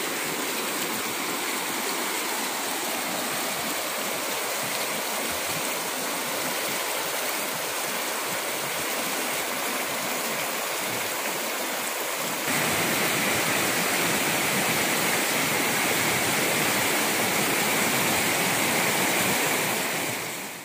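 Muddy floodwater rushing and churning down a swollen stream after heavy rain, a steady rushing noise. It gets a step louder a little past halfway and fades out at the end.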